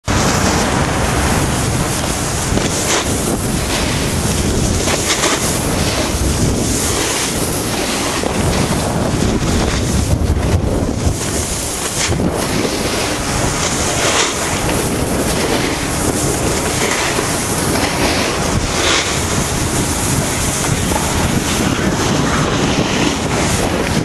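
Steady rushing wind noise on a moving camera's microphone, mixed with the hiss of snow sliding under the rider who is filming.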